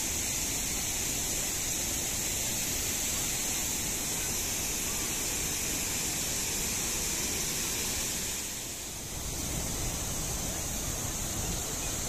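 A large waterfall in flood: a steady rushing of falling water that dips briefly about nine seconds in, then resumes.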